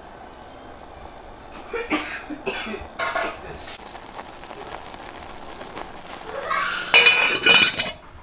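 Stainless steel saucepan and its lid clinking, with a few light clinks about two to three seconds in, then a louder clatter with a brief metallic ring about seven seconds in as the lid is set on the pot.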